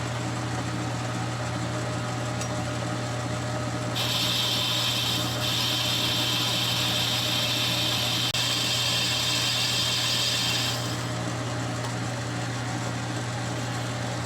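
Metal lathe running with a steady motor hum. From about four seconds in until about eleven seconds, a boring tool cuts the nut plate's bore, adding a loud high-pitched cutting noise over the hum.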